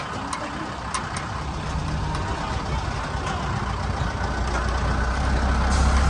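Open safari canter (a truck-based open bus) driving along a forest track, heard from on board: engine and road noise with scattered clicks and knocks, the engine's low rumble growing louder over the last couple of seconds.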